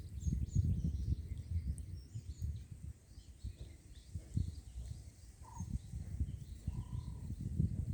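Small birds chirping, with a few short whistled calls in the second half, over an uneven low rumble of outdoor noise.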